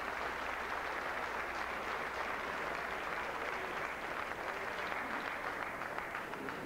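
Audience applauding steadily, a dense patter of many hands clapping that eases off slightly near the end.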